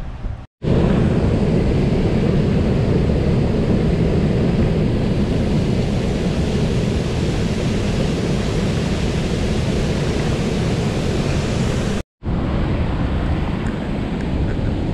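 River water pouring over a low mill dam: a steady, heavy rush. It cuts off abruptly about half a second in and again about twelve seconds in, each time picking back up at once.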